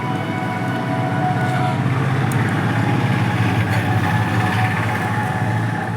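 Hero Passion Pro motorcycle's single-cylinder four-stroke engine running, a little louder from about a second in.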